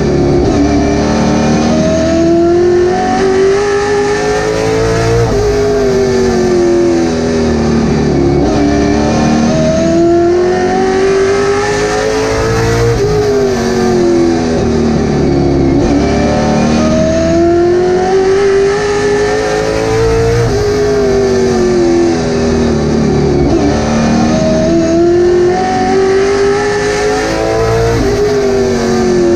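Late model race car's V8 engine heard from inside the cockpit at racing speed. The revs climb down each straight and drop as the driver lifts for the turns, repeating every few seconds.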